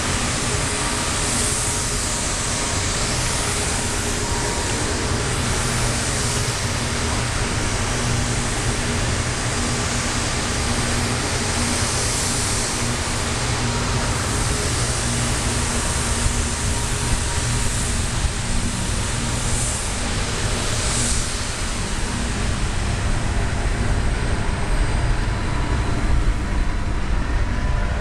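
Steady low rumble under an even hiss, with faint steady hum tones, growing slightly louder near the end.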